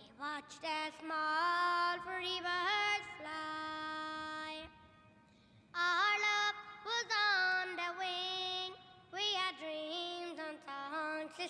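A solo high female voice sings a slow, unaccompanied melody in phrases of long held notes with quick ornamental turns between them, pausing for about a second near the middle.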